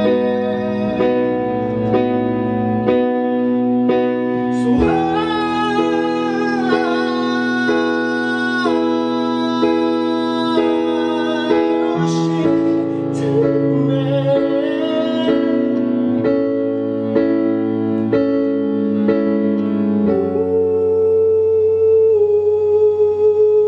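Live pop music: piano chords from a Kurzweil PC88 stage keyboard, changing about once a second over a low bass line. A wavering sung melody with no clear words rises above it from about five to twelve seconds in.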